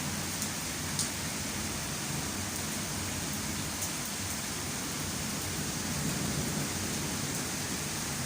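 Heavy rain pouring down in a thunderstorm, a steady, even hiss, with a few sharp ticks of drops, one about a second in.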